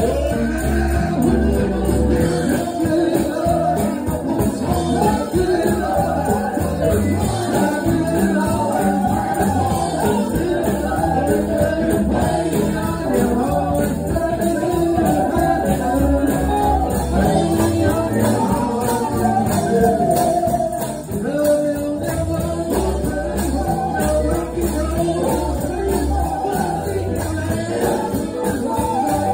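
Live church worship music: people singing over guitar and a steady beat.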